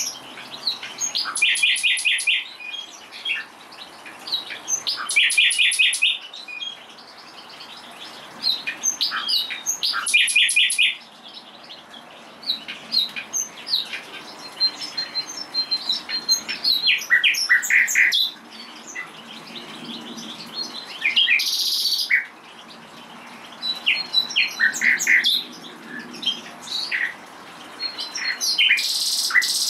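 Common nightingale singing: a run of phrases separated by short pauses, several built of rapid repeated notes. There are two brief bursts of hiss, one about two-thirds of the way through and one near the end.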